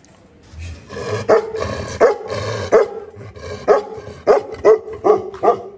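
A chained dog barking: a run of about eight barks starting about a second in, coming quicker toward the end.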